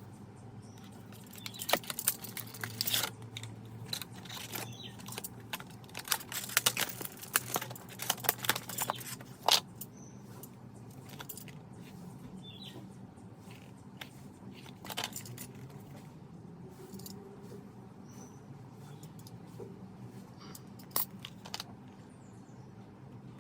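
Clicks, crinkles and rattles of the adapter's packaging being handled and opened, busiest in the first ten seconds and then only a few scattered clicks, over a faint steady hum.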